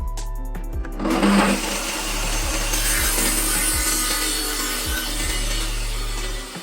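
Homemade sliding metal cutoff saw running with a steady motor hum. About a second in, its blade cuts into metal with a loud, even grinding hiss that lasts until the end.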